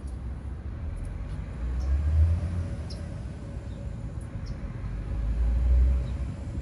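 Low outdoor rumble that swells twice, about two seconds in and again later on.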